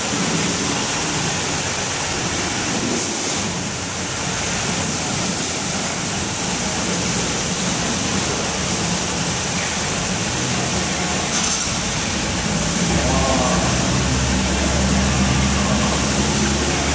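Steady hiss of water spraying in a car-wash bay. A low steady hum joins about thirteen seconds in.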